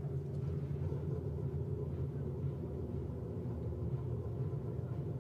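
Steady low rumble of LMP3 prototype race cars' V8 engines running before qualifying.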